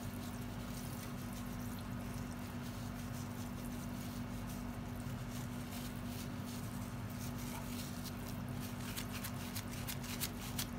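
Faint ticking and light crackle of white sugar grains sprinkled by hand into a pan of hot oil, growing more frequent toward the end, over a steady low hum.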